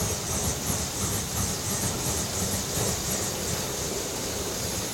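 Shay geared steam locomotive moving slowly, its exhaust giving quick, even chuffs with a steady steam hiss over a low rumble of the running gear.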